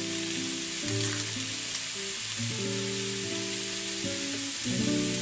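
Sliced mushrooms sizzling as they stir-fry in oil in a pan, with background music of held notes playing over it.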